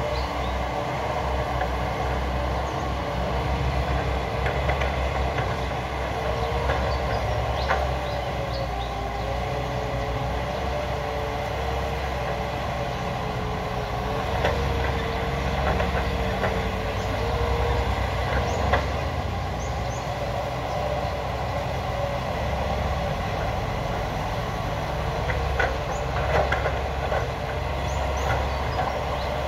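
Caterpillar hydraulic excavator's diesel engine running steadily under load, with a whine that wavers up and down as the hydraulics work the arm and bucket. A few short sharp knocks come through at intervals.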